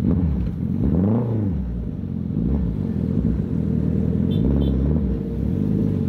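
Suzuki Hayabusa's inline-four engine running, its revs rising and falling about a second in, then holding steadier with smaller swells.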